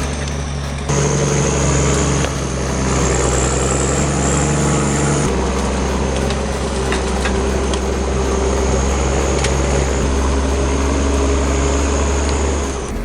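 Heavy machinery's diesel engine running steadily under load, with a high steady whine above it; the sound changes abruptly about a second in and again about five seconds in, with a few faint clicks partway through.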